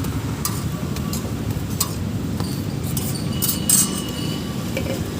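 Serving utensils and plates clinking in a few short knocks at a street-food stall, the loudest clatter about three and a half seconds in, over a steady rumble of street traffic.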